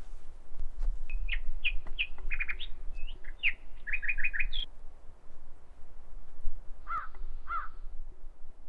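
Woodland birds: a songbird sings a quick string of high chirping notes for the first few seconds, then a crow caws twice near the end. Faint footsteps on a dirt path run underneath.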